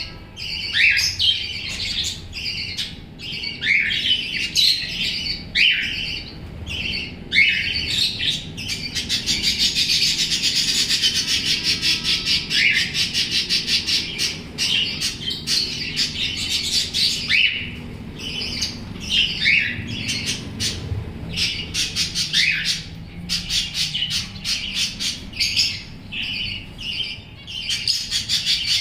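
A group of pet budgerigars chirping and squawking, with many short calls overlapping and a stretch of fast, continuous chatter about a third of the way in.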